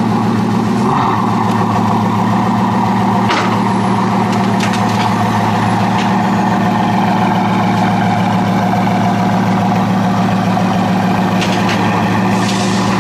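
Large vehicle engine idling steadily, with a few light knocks and clicks over it.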